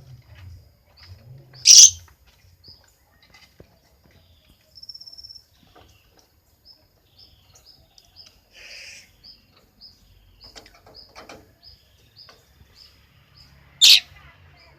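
Lovebird calling: two loud, brief high-pitched screeches, about two seconds in and near the end, with a run of short high chirps at roughly two a second in between.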